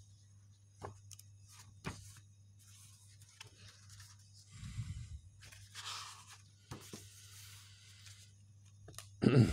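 Paper pages of a comic book being turned by hand: soft rustles of paper with a few sharp clicks, and a louder rustle near the end.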